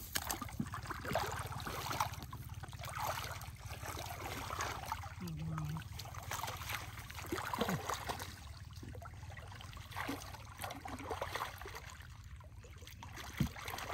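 Muddy water sloshing and splashing irregularly as hands grope through a shallow, silty ditch bottom for fish.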